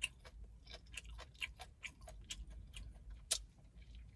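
Close-up mouth sounds of eating fried chicken: a string of irregular wet clicks and smacks as the gristle and bone ends are chewed and sucked, the loudest a little past three seconds in.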